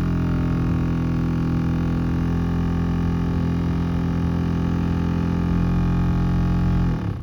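2013 Dodge Grand Caravan's AC blower fan running with a loud, steady buzzing drone that cuts off near the end. The noise comes from a dead mouse caught inside the fan.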